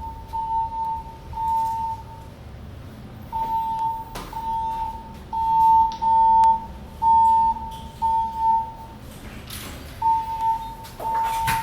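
Building fire alarm speakers sounding the evacuation tone: one steady mid-pitched beep, about half a second long, repeated in groups of three with a pause between groups. This is the three-pulse evacuation signal played between the recorded voice messages. A few faint clicks and knocks come through as well.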